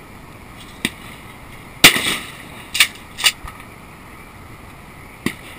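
A single loud shotgun shot about two seconds in, with a short echo trailing off. Several fainter sharp cracks and clicks come before and after it.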